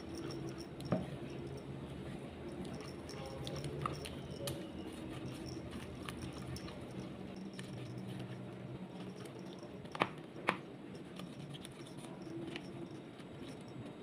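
Silicone spatula stirring a thin, watery mixture in a plastic bowl: soft wet squishing and scraping, with a few sharp knocks of the spatula against the bowl, two of them close together about ten seconds in.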